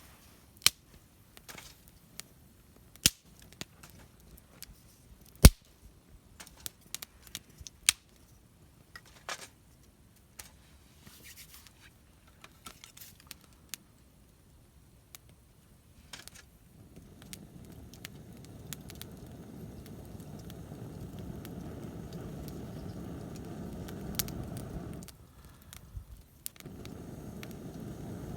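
Campfire wood giving scattered sharp cracks and snaps. About halfway through, a steady low rushing sound sets in, stops abruptly for a moment near the end, then starts again.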